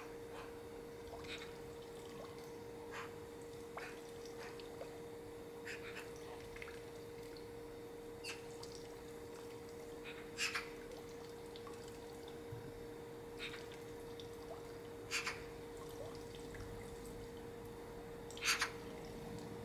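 A faint steady hum under scattered sharp clicks and ticks, with three louder double clicks: one about halfway through, one a few seconds later and one near the end.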